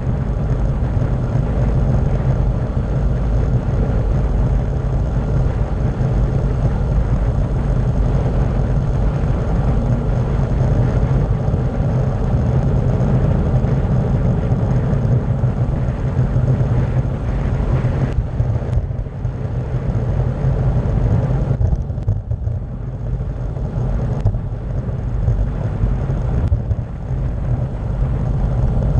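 Steady, loud wind rumble buffeting the microphone of a camera riding on a bicycle descending a paved road at speed, mixed with the hiss of the tyres on asphalt.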